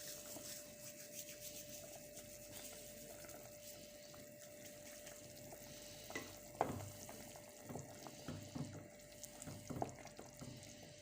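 Faint crackling rustle of dried thyme being rubbed and crumbled between the hands over a cooking pot. A few light taps and knocks come in the second half.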